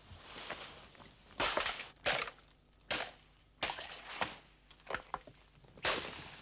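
Machete strokes chopping through jungle undergrowth: each is a sharp chop with a brief rustling swish of cut vegetation. There are about eight strokes at uneven spacing, roughly one a second.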